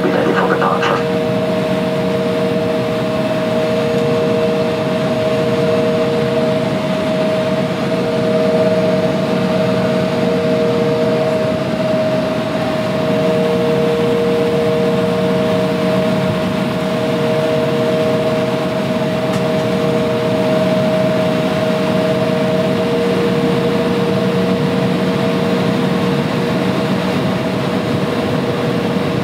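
Jet airliner cabin noise while taxiing: the engines and cabin air run with a steady whine of two held tones over a lower constant drone, heard from inside the passenger cabin.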